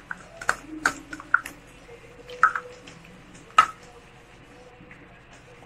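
Metal spoon clinking and scraping against a stainless steel bowl as thick nut paste is scraped off into it: a quick run of light clicks over the first second and a half, a couple more, then one sharper clink about three and a half seconds in. A faint steady hum lies underneath.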